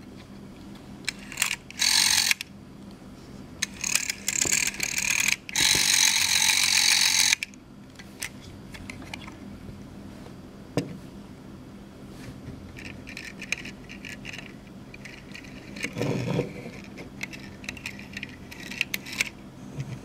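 A 1978 telephone's rotary dial mechanism is wound and let go several times. Each return is a whirring rattle as the spring drives it back past the friction governor and pulse-dialing contacts. The longest return lasts about two seconds near the start, and shorter, fainter returns come later.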